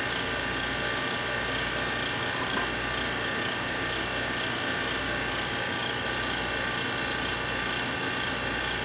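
Steady whirring hum of a vacuum pump holding the argon-filled glass bottle chamber at low pressure, with a thin, steady high whine over it.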